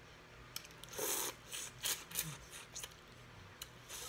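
Crawfish being peeled and eaten close to the microphone: a string of short crackles and clicks from the shells, with a longer rustling burst about a second in.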